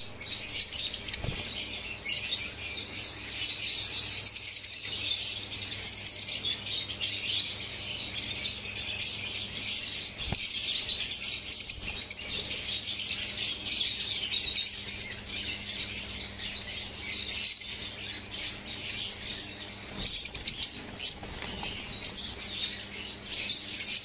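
A caged flock of lovebirds chattering in a dense, continuous stream of high-pitched chirps, with wings fluttering now and then as the birds move about.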